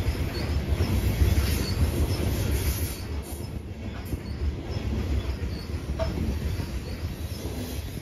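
Coal train's open-top coal cars rolling past close by: a steady low rumble of wheels on rail, with faint short high wheel squeaks now and then. The rumble eases a little partway through.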